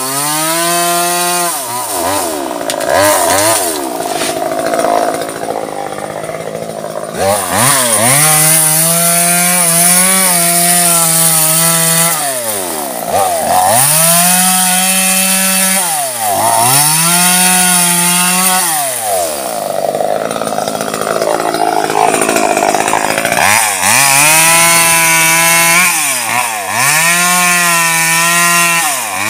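Chainsaw engine revved to full throttle and let back down every few seconds, cutting through mango trunks and branches; in some stretches the pitch sags and turns rough as the chain bites into the wood.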